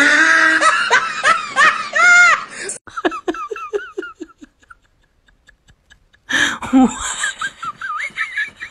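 People laughing hard, in loud bursts that trail off in a falling series of laughs; after nearly two seconds of near silence, laughter starts again a little past the middle.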